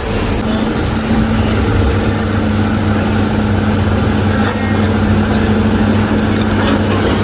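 Heavy diesel engine running steadily at a constant speed, a low, even hum that settles in about half a second in.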